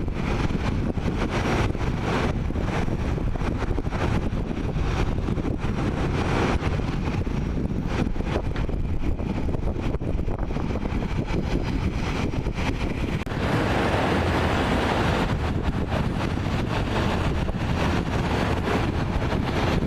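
Jet airliner engine noise with wind buffeting the microphone, a steady low rumble that swells into a louder rushing roar about 13 seconds in.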